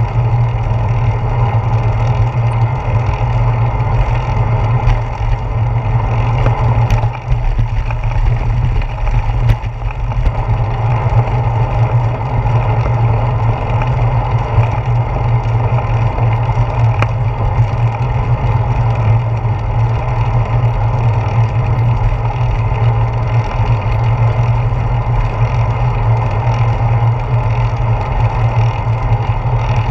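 Steady rush of wind and rumble of bicycle tyres on pavement, heard through a handlebar-mounted GoPro Hero 4 while riding.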